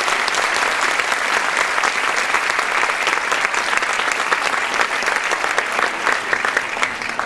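Audience applauding, a dense sustained clapping that thins out near the end into scattered individual claps.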